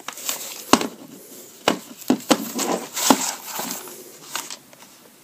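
A VHS cassette is handled and slid out of its cardboard sleeve: a string of sharp plastic clicks and knocks, with the papery rustle of the sleeve between them.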